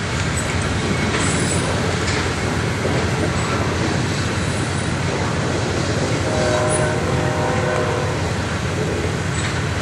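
A CN freight train's tank cars and covered hoppers rolling past: a steady rumble of steel wheels on rail. About six seconds in, faint high tones rise over it for a couple of seconds.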